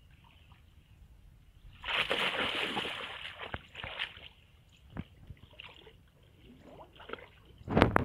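Shallow muddy water splashing and sloshing as a person wades in and crouches to grope for fish by hand. There is a big splash about two seconds in, smaller splashes after it, and another loud splash near the end.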